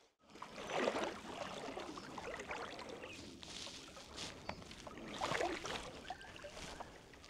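Creek water sloshing and splashing around the legs of someone wading, with louder surges about a second in and about five seconds in, and small clicks of gear in between.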